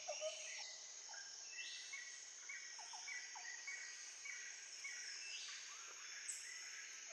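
Faint rural outdoor ambience: birds chirping in many short repeated notes over a steady high-pitched drone of insects.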